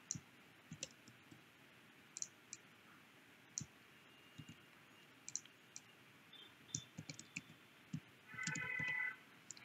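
Scattered computer mouse clicks and keyboard key presses, with a brief pitched hum about eight seconds in.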